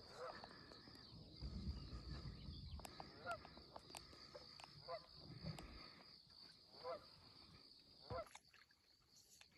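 Faint animal calls, likely birds: a few short calls spaced one to two seconds apart over a quiet background with a steady high hiss.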